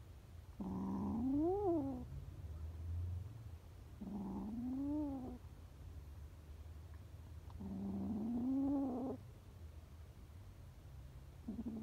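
A frightened kitten gives low, drawn-out defensive yowls three times, with a fourth starting near the end. Each opens rough and noisy, then becomes a wail that rises and falls in pitch.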